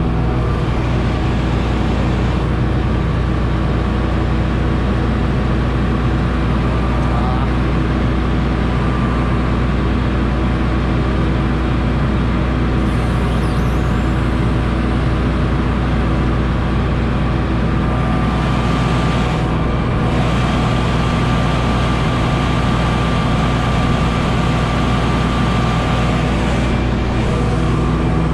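Claas Lexion 670 combine harvester running steadily at constant speed, a deep hum with fixed tones.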